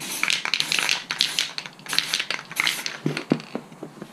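Aerosol spray-paint can hissing in a string of short bursts as paint is sprayed onto an airsoft rifle, with a couple of knocks about three seconds in, after which it goes quieter.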